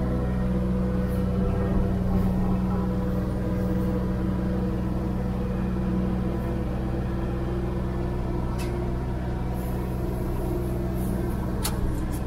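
John Deere 1585 tractor's diesel engine running steadily under load while the front broom sweeps snow; the steady hum cuts off suddenly at the end.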